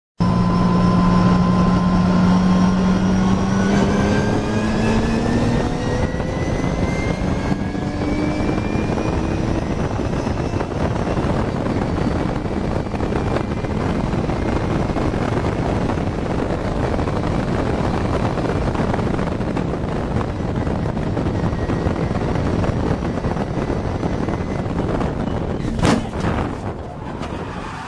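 Nissan 370Z race car's V6 engine heard from inside the car at racing speed under heavy road and wind noise, its note rising through the gears in the first several seconds. Near the end a single sharp bang cuts through, and the engine noise falls away, the sound of the car striking another car.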